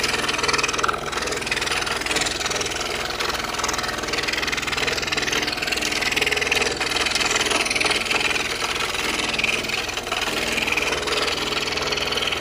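DeWalt DW788 scroll saw running at high speed, its reciprocating blade cutting puzzle pieces from a thin wooden panel: a steady mechanical buzz. The saw is one its owner says has started to get noisy with many hours of wear.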